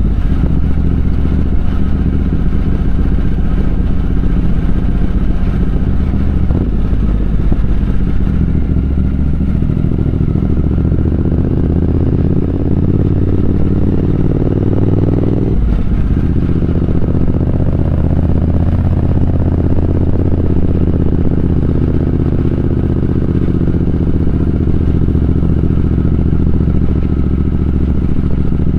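Triumph Speed Twin 1200's parallel-twin engine running under way. The revs climb for a few seconds, then drop sharply on a gear change about 16 seconds in, and the engine pulls on steadily after that.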